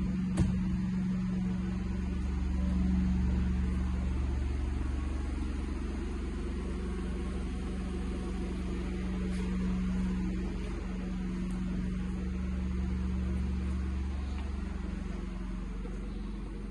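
A steady low hum with a low rumble beneath it, slowly swelling and fading in level.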